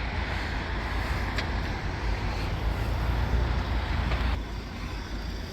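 Road traffic going past, a steady low rumble with a tyre-and-engine hiss over it that drops away suddenly about four and a half seconds in.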